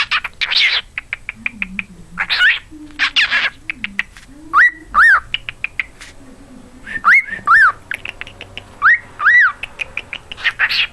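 Cockatiel chattering with rapid clicks and short raspy calls, and whistling three pairs of clear notes that rise and fall, about four, seven and nine seconds in.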